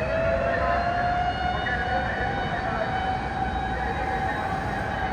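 Rescue truck's mechanical motor siren wailing: its pitch climbs at the start, then holds high and slowly eases off. A steady low rumble from the truck runs underneath.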